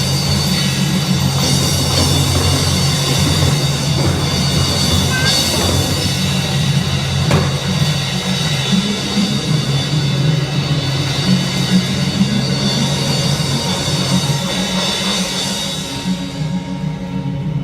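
Loud music with drums and other instruments, played continuously.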